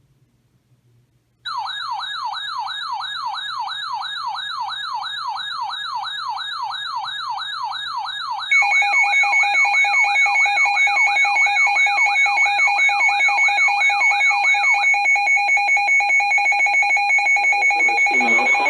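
Electronic emergency-alert tones: a warbling alarm tone rising and falling about four times a second. About eight seconds in, a louder steady two-tone attention signal joins it and then carries on alone. A voice starts to come in at the very end.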